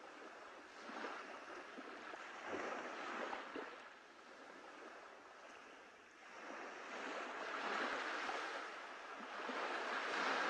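Small sea waves washing onto the shore, the surf swelling and fading every few seconds.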